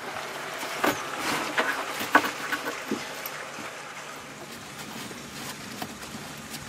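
Light knocks and rustles as a fabric Molle pouch is pressed and fitted onto a metal Molle panel, over a steady noisy background.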